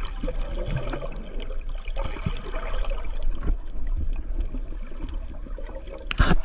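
Underwater water noise at the camera: a steady rush of moving water, with scattered small clicks and crackles and a louder gush of water near the end.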